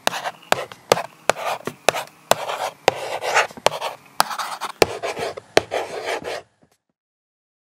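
Felt-tip marker writing on a board: a quick run of scratchy strokes, each set off by a sharp tap, stopping suddenly about six and a half seconds in.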